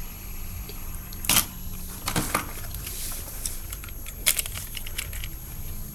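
Fidget spinners being handled, giving a few short, sharp clicks and clatters, three of them clearest, over a low steady background hum.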